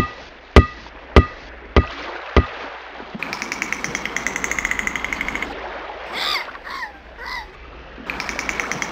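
Dolphin sounds used as cartoon dialogue: a fast buzzing click train, then three short rising-and-falling whistles, then another click train near the end. Before them come five sharp knocks, evenly spaced about half a second apart.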